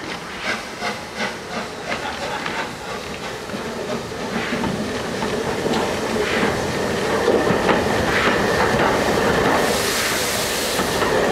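LNER Peppercorn A1 Pacific steam locomotive 60163 Tornado running slowly into the station and drawing alongside. Regular knocks come about two to three a second at first. The sound then grows louder, with a loud hiss of steam about ten seconds in as the engine comes level.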